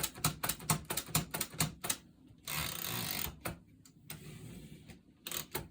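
Remington Model 2 manual typewriter being typed on: sharp type-bar strikes at about four a second for the first two seconds, then a rushing slide of just under a second, followed by a few single strokes.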